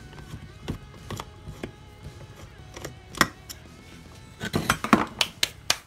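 A screwdriver knocking and prying at a satellite dish LNB's plastic cap and cast metal housing: scattered sharp clicks and knocks, then a quick run of louder knocks near the end.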